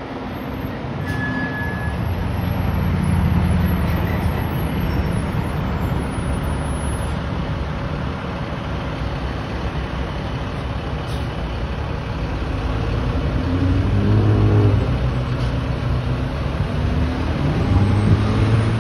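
Fire engine's diesel engine running as the truck pulls out of the station and drives off, swelling as it accelerates about two-thirds of the way in and again near the end.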